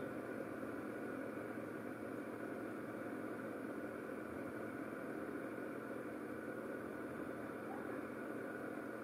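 A steady machine hum with hiss, even in level throughout, with nothing else standing out.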